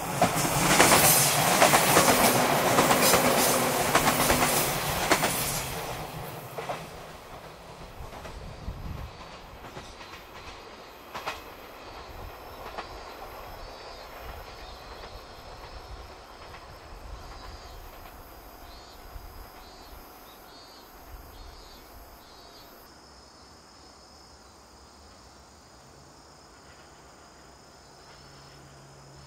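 A 117-series electric multiple unit passing close by, its wheels clattering over the rail joints, loudest in the first five seconds and then fading away. A steady low hum comes in near the end.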